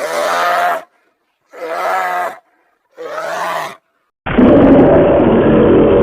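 Edited creature sound effects for an imaginary platypus-bear: three short pitched animal calls with pauses between them, then a louder, long drawn-out call starting near the end.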